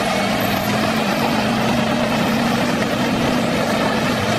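Caterpillar D7R crawler bulldozer's diesel engine running steadily while the machine works dirt, a constant heavy engine drone.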